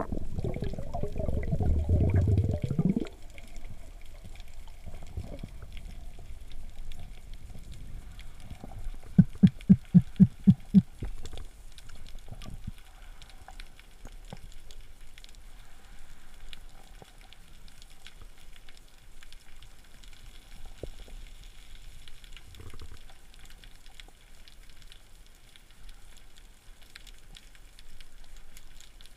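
Underwater sound picked up by a camera in its housing during a breath-hold spearfishing dive over sand. A loud low rush of moving water fills the first three seconds. About nine seconds in comes a quick run of about eight strong low thumps, and after that a faint low wash with scattered faint clicks.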